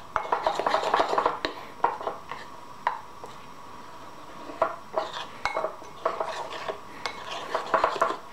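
Metal spoon stirring a thick melted marshmallow and butter mixture in a ceramic bowl, scraping and clinking irregularly against the bowl's sides and bottom. The clinks ease off for a moment midway, then pick up again.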